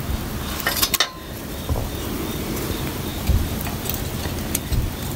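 Light metallic clicks and clinks as rusty steel coil springs are handled and held against a metal fork, with a few dull knocks.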